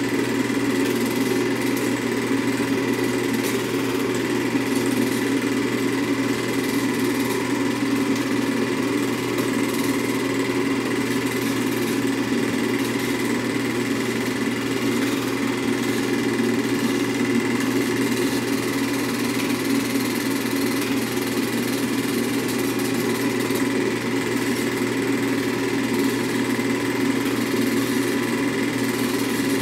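Home-movie film projector running: an even mechanical drone with a thin steady whine.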